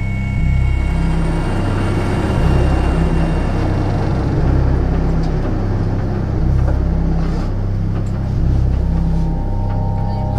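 Helicopter noise, a steady rushing from its engines and rotor, mixed with background music that has a slow pulsing bass.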